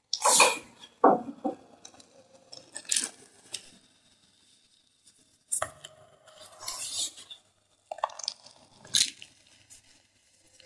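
Thin pieces of gym chalk being crushed: a run of about seven short, crispy crunches, a second or two apart, with quiet gaps between them.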